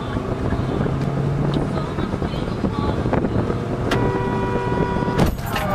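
Steady road and wind noise inside a moving car on a highway, then a car horn sounds for about a second and is cut off by a sharp crash of impact near the end.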